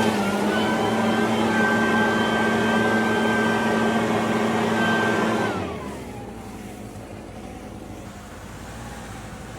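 A motor running with a steady whine and a low hum, shut off about five and a half seconds in, its pitch falling as it slows and a fainter hum carrying on.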